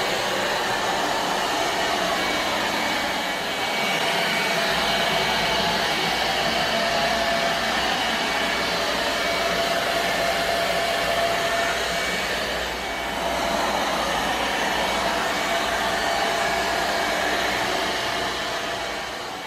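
Robot vacuum cleaner running: a steady motor and fan whir with a faint high whine, and a low hum joining about five seconds in.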